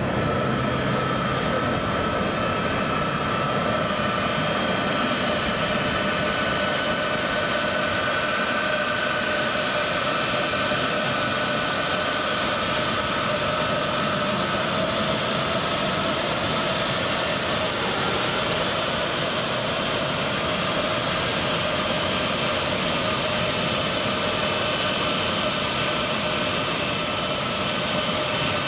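Turbofan engines of a C-5M Super Galaxy running steadily: an even, loud jet roar with several steady high whining tones over it.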